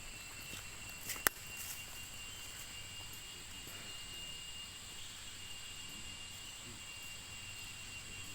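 Forest insects droning steadily in a thin, high-pitched tone, with one sharp click a little over a second in.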